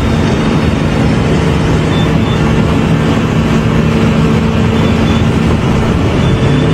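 An engine running steadily, a dense mechanical noise with a low hum.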